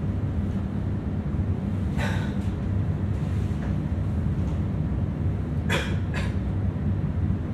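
Rodalies commuter train running along the track with a steady low rumble. A short click comes about two seconds in, and two more come close together later.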